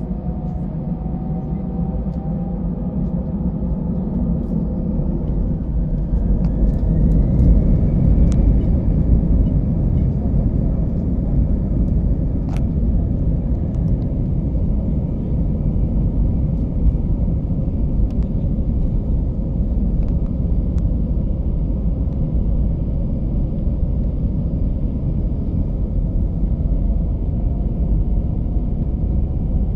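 Airbus A319 cabin during the takeoff roll: the CFM56 jet engines spool up to takeoff thrust, with a faint whine rising in pitch and the rumble growing louder over a few seconds, then a steady loud rumble of engines and wheels on the runway. A few light rattling ticks from the cabin.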